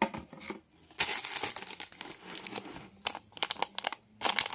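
Foil sachet of a screen-cleaning wipe crinkling as it is handled and torn open, with a dense run of sharp crackles in the last second and a half.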